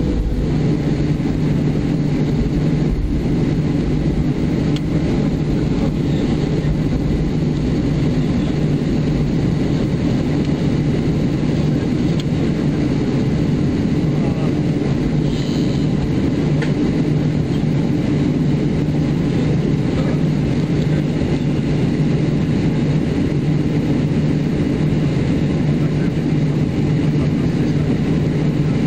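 Steady hum of a Boeing 737-400's CFM56-3 jet engines at low idle power, heard from inside the cabin, with no spool-up.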